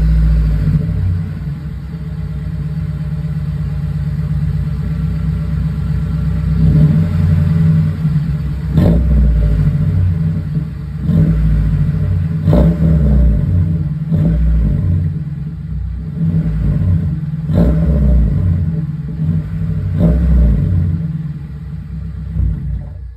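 Honda D15 four-cylinder engine, fitted with an unequal-length header and with its axle-back muffler removed, idling with about seven short throttle blips in the middle stretch. It has the deep, Subaru-boxer-like rumble that an unequal-length header gives.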